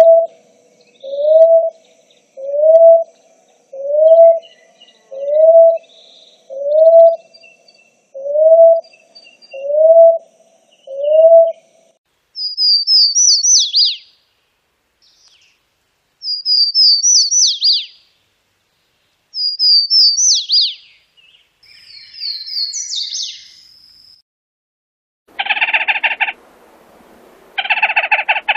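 Bird vocalizations in sequence. First come about ten short upslurred whistled notes, evenly spaced a little under a second apart. Then four high, quick song phrases that each end in a falling trill, followed near the end by two harsh rattling calls.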